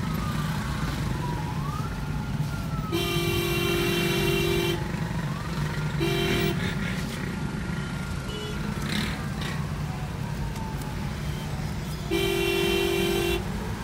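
Stop-and-go traffic heard from inside a car: a steady low engine rumble, with a vehicle horn sounding three times, a long blast about three seconds in, a short toot around six seconds and another long blast near the end. A faint tone slowly rises and falls in the background.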